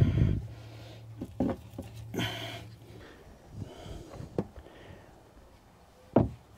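Scattered soft knocks and scrapes of hand work: a wooden stir stick in a plastic bucket of sealer, then a paint roller spreading sealer over the tank floor. A low thump opens it, and a low steady hum runs under the first three seconds.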